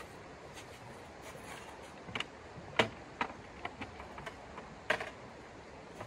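Irregular sharp clicks and clanks of a folding metal tent stove being handled and taken apart, a cluster of them from about two seconds in, the loudest near three and five seconds. Beneath them, the steady hiss of a flowing river.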